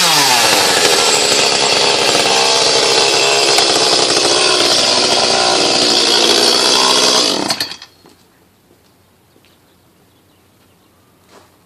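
Echo CS-310 two-stroke chainsaw running at high speed, then shutting off about seven and a half seconds in, leaving only a few faint clicks.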